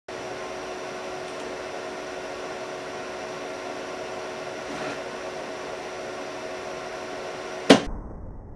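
Steady machine hum holding a few fixed tones, then one sharp knock near the end.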